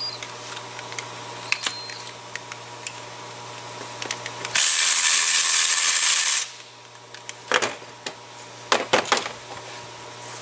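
A power ratchet runs for about two seconds, spinning out a 10 mm mounting bolt. Scattered metal clicks and clinks of the tool and socket come before it and in a quick cluster a few seconds after.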